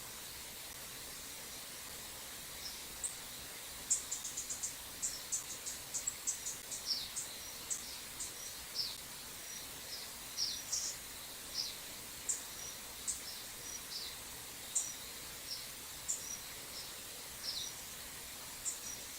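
A series of short, high-pitched chip calls, some sliding downward, coming rapidly at first and then at irregular intervals, most likely from a small bird at the feeders. Under them runs the steady rush of a stream.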